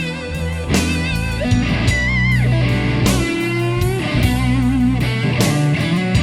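Blues-rock song in an instrumental passage: an electric guitar plays bent, wavering lead notes over drums and bass, played back through an Aiwa XK-S7000 cassette deck.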